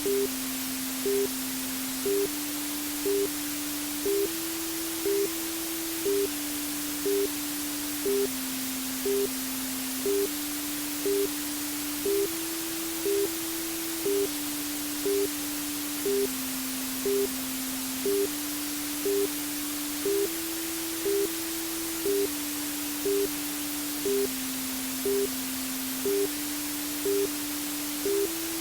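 Steady white-noise hiss for lulling a baby to sleep, with a soft low synthesized tone underneath that steps to a new pitch every two seconds and a short higher beep about once a second.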